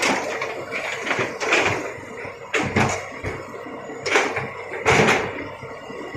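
Rocks knocking and clattering together in a series of sharp impacts, about five loud ones, as stones are loaded by an excavator.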